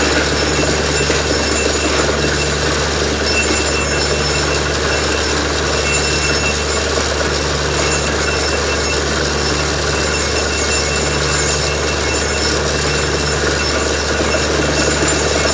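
Borewell drilling rig running steadily while water blows out of the freshly struck borehole. There is a steady low engine hum, with a deeper tone that swells and drops about every two seconds, over a continuous rushing noise of the water.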